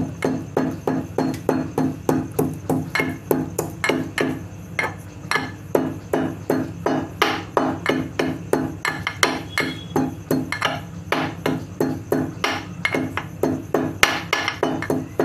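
Ginger and cardamom pods being pounded with a pestle in a small steel mortar: steady, rhythmic metal-on-metal strikes, about three a second.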